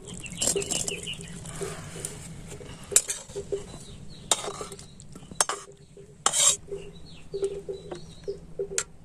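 Metal spoon scraping and clinking against a cooking pan as the cooked potatoes and guagandhari greens are taken off the fire and served out, with irregular sharper clanks throughout.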